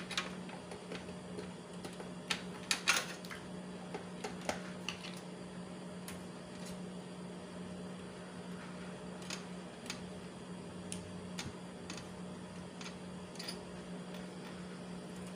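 Scattered clicks and rattles of cable connectors and wiring being handled and plugged in inside an open desktop computer case, loudest about three seconds in, over a steady low hum.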